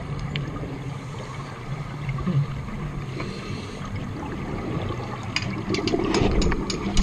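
Underwater sound of a scuba dive picked up through a camera housing: regulator breathing, then from about five and a half seconds in a louder rush of exhaled bubbles with a scatter of sharp clicks.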